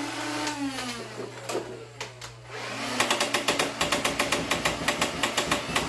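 Nerf Rival Prometheus motorized blaster: its motors whine, rising and falling in pitch, then about three seconds in it fires on full auto, a rapid rattle of about eight shots a second.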